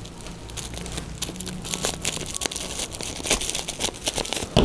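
Shiny black plastic parcel wrapping crinkling and crackling in irregular little clicks as it is handled and cut open with scissors.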